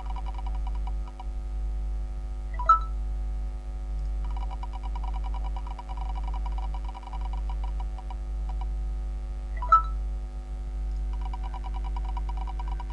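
On-screen spinning name wheel clicking rapidly as its segments pass the pointer, in runs of a few seconds that stop and start again twice. In each pause comes a short, louder blip. A steady low electrical hum lies underneath.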